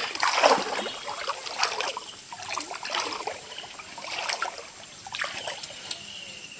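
Shallow water sloshing and splashing in irregular bursts, with trickling, as someone moves through the flooded wetland; the strongest splash comes about half a second in.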